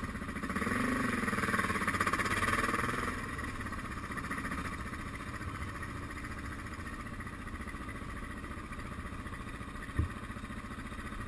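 Suzuki DR650's single-cylinder engine running as the bike rolls slowly, heard from the bike itself. The revs rise and fall over the first few seconds, then it runs steadily at low speed. There is one short sharp knock about ten seconds in.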